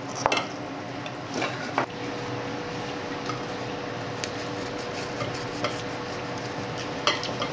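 Kitchen knife sawing through the hard, darkened skin of an air-fried smoked pork hock, with a steady crackling crunch and a few sharper crunches and scrapes of knife and fork. The skin sounds very crisp but is hard to eat, which the cook puts down to not having pricked it before air-frying.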